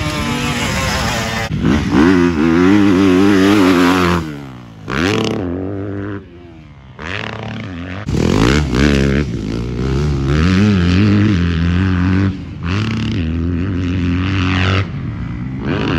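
Yamaha motocross dirt bike engine revving hard and backing off as it rides the track, its pitch climbing and falling again and again. The sound breaks off and jumps in level several times.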